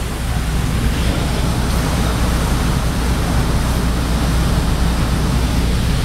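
Steady, loud rumbling hiss heard from inside a train car during a typhoon downpour, with a deep, even low rumble under it.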